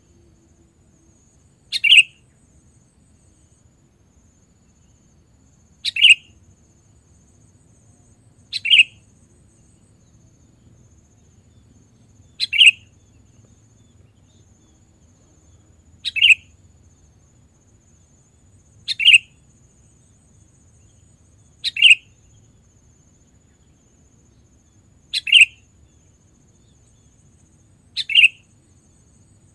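Short, sharp kutilang (sooty-headed bulbul) call notes, nine of them spaced about every three seconds, each one brief and loud.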